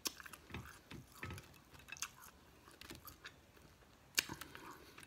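Close-up eating sounds: chewing and lip-smacking over seafood, with scattered small clicks and one sharper click a little past four seconds in.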